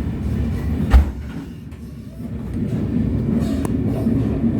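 Sydney Trains Tangara (T set) electric train running at the platform, with one sharp clunk about a second in; the noise dips briefly and then builds again.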